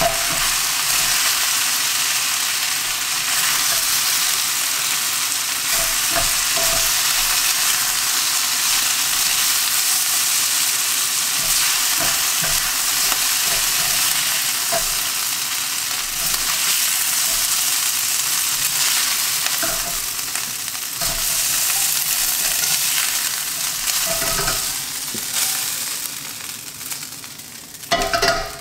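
Thinly sliced Dall sheep meat sizzling in a hot wok, stirred and scraped with a spatula. The sizzle fades over the last few seconds as the meat is lifted out of the wok.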